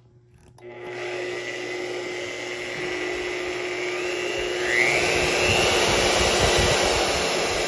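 Milwaukee electromagnetic drill press motor starting about half a second in and running free with a steady whine. Around four and a half seconds in it rises in pitch and gets louder as the drill speed knob is turned up.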